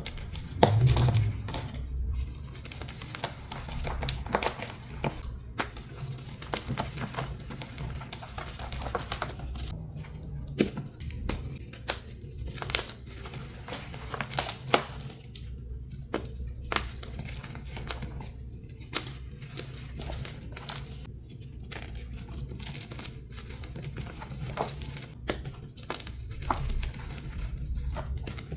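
Dyed and pasted gym chalk blocks being crushed, a long run of irregular dry crunches and crackles.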